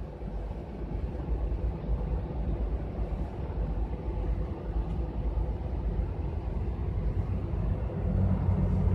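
Steady low rumble of a city bus's engine and running gear heard from inside the cabin. It grows louder about eight seconds in.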